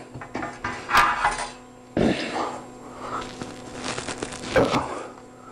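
Handling noise as a condenser microphone and its metal boom arm are moved and set down on a table: a few sharp knocks and clatters about one, two and four and a half seconds in, with rustling between them.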